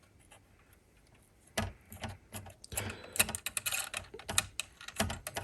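CPU water block backplate screws being turned in by hand on a motherboard: a run of irregular light metallic clicks and ticks that starts about a second and a half in and is busiest around the middle.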